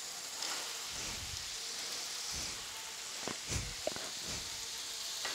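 Masala and peas sizzling softly in an aluminium kadhai as cut carrots are tipped in from a plate, with a few soft knocks and a brief clink about three and a half seconds in.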